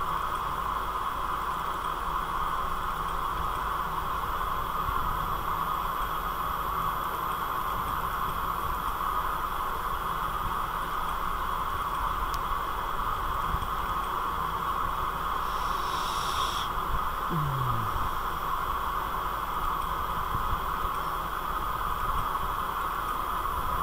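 Steady background hiss with a faint low hum: the microphone's room noise during a silent stretch of a screen recording. A brief, faint high-pitched chirp sounds about two-thirds of the way through.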